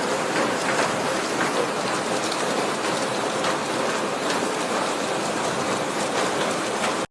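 Heavy rain pouring down and pattering on hard surfaces: a steady, dense hiss flecked with many small drop ticks, cutting off suddenly at the end.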